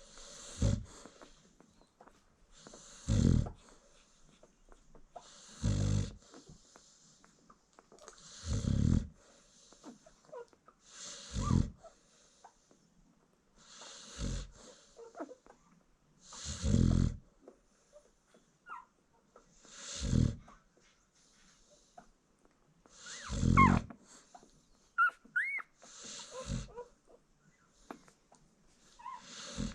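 American Bully mother dog snoring, one deep snore about every three seconds. Her newborn puppies give a few faint, high squeaks near the end.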